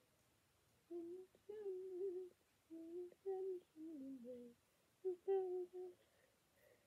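A young girl humming a slow tune in four short phrases, starting about a second in; the third phrase slides down in pitch.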